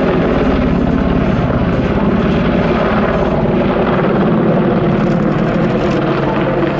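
AH-64D Apache attack helicopter in aerobatic flight: a loud, steady, fast chopping of the main rotor blades over the hiss of the engines.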